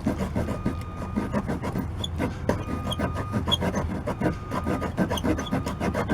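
Hacksaw blade in a handle sawing through rotted wooden door trim in short, rapid back-and-forth strokes.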